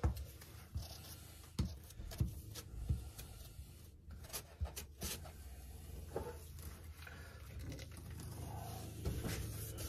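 Putty knife spreading ready-made joint compound: faint, irregular scrapes and soft taps, over a low steady hum.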